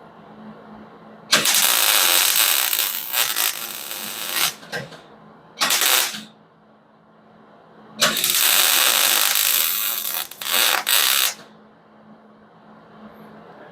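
MIG welder arc crackling in three bursts, two of about three seconds with a short one between, as the torn-away door hinges are welded back to the body; a faint steady hum runs underneath.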